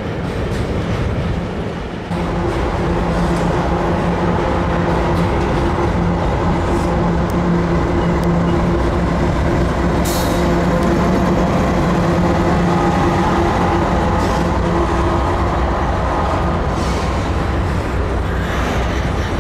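Long Canadian Pacific freight train rolling past, a steady rumble of wheels on rail with a low steady hum through most of it that fades out near the end.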